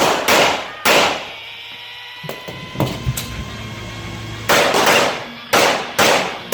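Handgun shots fired in quick succession: three shots within the first second, a pause of about three and a half seconds with small clicks, then four more shots about half a second apart.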